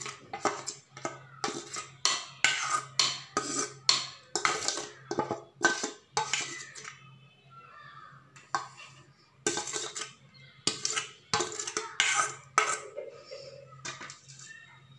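A metal spoon scraping and clinking against stainless-steel bowls in quick, irregular strokes as a thick fish-roe and egg batter is scraped from one bowl into another.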